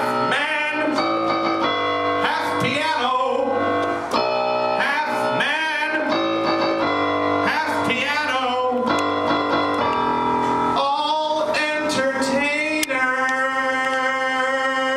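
A man singing into a microphone over chords played on an electronic keyboard. His voice slides and wavers in pitch, and near the end a chord is held for about two seconds.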